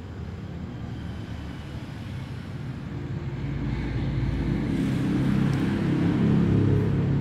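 Low motor rumble that grows steadily louder through the second half and is loudest near the end.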